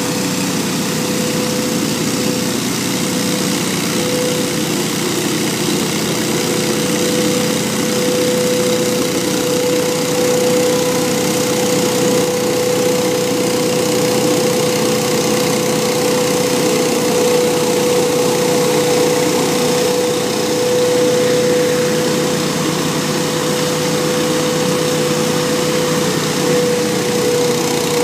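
Hurricane 314 stand-on leaf blower running steadily while blowing leaves: an even engine drone with a constant whine over the rush of air from its fan.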